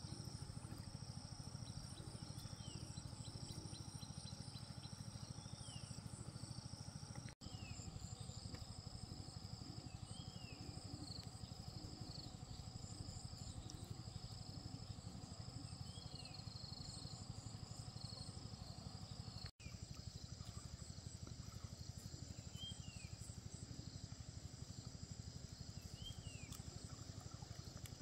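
Steady high-pitched insect chorus, with short falling chirps every few seconds over a low steady rumble.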